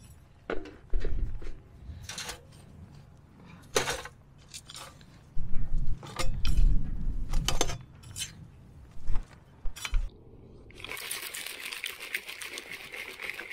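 A short-handled shovel scraping and scooping garden soil into a mesh soil sifter: irregular scrapes, soft thuds and sharp metallic clinks. About eleven seconds in this gives way to a steady hiss.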